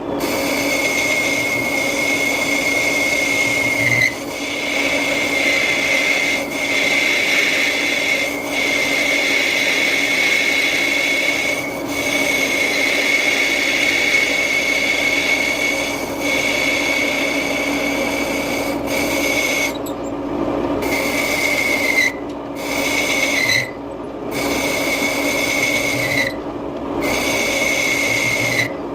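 Metal lathe turning a cast iron part: the cutting tool scrapes steadily against the spinning iron with a high, constant whine. The cutting breaks off briefly several times near the end.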